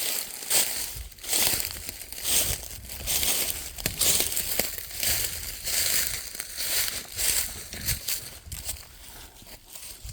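Footsteps crunching and shuffling through dry leaf litter and brush off the trail, an irregular run of crunches that eases near the end.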